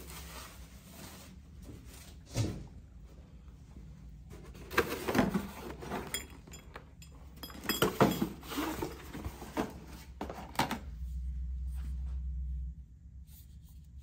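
Cardboard boxes and a foam packing sheet being pulled out of and lifted off an espresso machine: rustling and several dull thumps of boxes. A steady low hum runs for about two seconds near the end.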